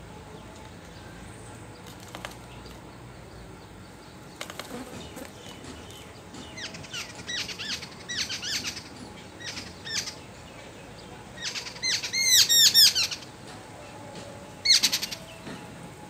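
A small bird flapping its wings against a scooter's rear-view mirror, attacking its own reflection. It gives runs of quick repeated calls from about six seconds in, loudest around twelve to thirteen seconds, with a short final burst near the end.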